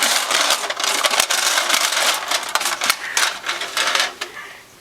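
Small plastic Play-Doh toy pieces clattering and rattling in a lunchbox as they are shaken and handled: a dense run of quick clicks that eases off near the end.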